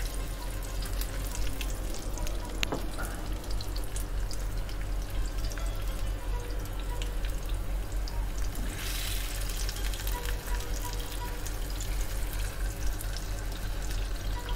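Butternut squash slices sizzling in hot oil in a grill pan: a steady crackling hiss that swells briefly about nine seconds in, as another slice goes into the pan.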